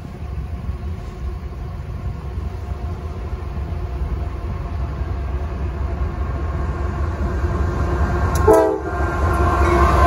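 Approaching freight train led by CSX GE diesel locomotives, its low rumble growing steadily louder. The locomotive's air horn sounds a chord of several tones about eight and a half seconds in, breaks off briefly, and sounds again near the end.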